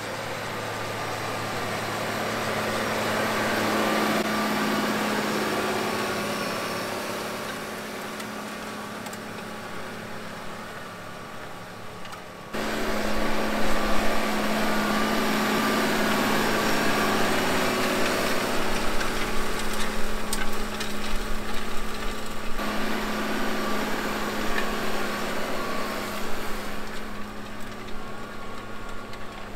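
A Case IH tractor's diesel engine works steadily while pulling a tillage disc through weedy ground. The engine grows louder and then fades as the tractor passes. About twelve seconds in it cuts to a louder, closer engine sound, with irregular crackle from the disc working the soil.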